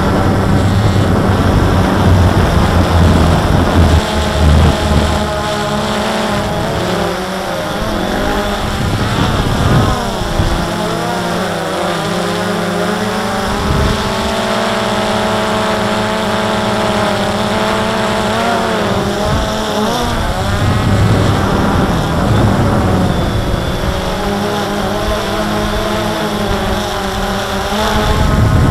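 DJI quadcopter's motors and propellers whining, heard from its own onboard camera, the pitch rising and falling as the throttle changes. Wind rumbles on the microphone at the start and again near the end.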